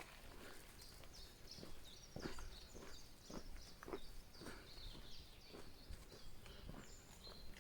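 Irregular footsteps, one every half second to second, with faint short high bird chirps running through the middle and latter part.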